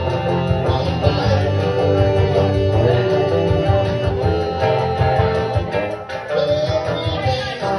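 Live band music: a man singing into a microphone over guitar-led, country-style backing with a steady bass.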